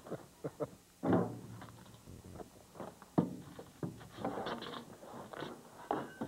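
Garden digging: a long-handled tool working soil and weeds, giving irregular scrapes and knocks, the sharpest knock about three seconds in.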